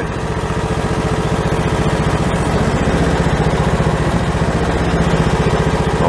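Bobcat 530 skid steer's engine running steadily, with an even, fast pulse.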